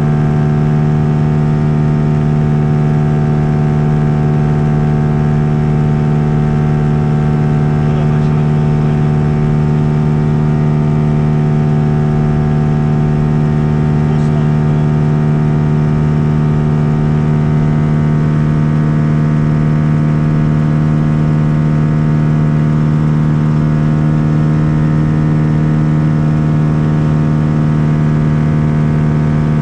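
Lake Buccaneer LA-4-200's pusher-mounted four-cylinder Lycoming engine and propeller running steadily in flight, one even drone. About 26 seconds in, one of its tones shifts slightly.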